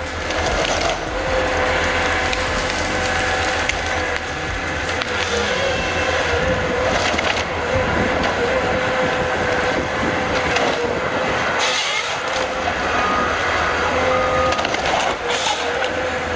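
Heavy forestry machine running steadily under load while wood cracks and splinters, with a few sharp cracks.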